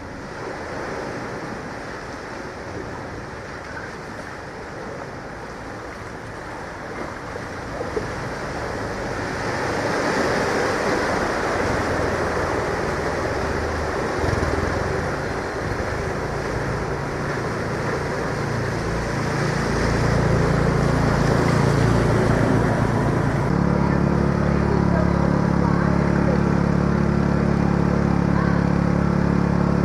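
Floodwater sloshing and splashing as a small car ploughs through a flooded street, its engine faintly running under the wash and growing louder. About three-quarters through, a steady, loud engine hum takes over.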